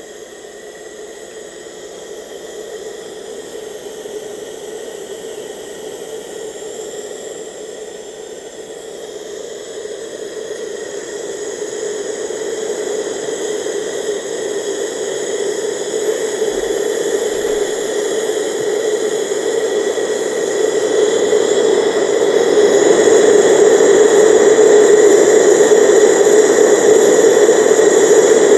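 Gas torch burner firing into a homemade #10-can forge: a steady rushing hiss with a low hum, gradually growing louder and then holding level near the end.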